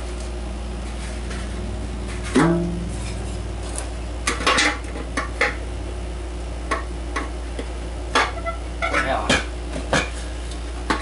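Knocks and clatters of a light fixture's aluminum reflector and plastic diffuser being handled. One louder knock about two seconds in rings briefly, then lighter taps follow at uneven intervals.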